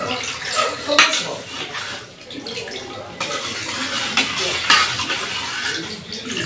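A metal spoon stirring salted water and vinegar in an aluminium saucepan, the liquid swishing while the spoon clinks now and then against the pot: the salt is being stirred until it dissolves for a pickling brine.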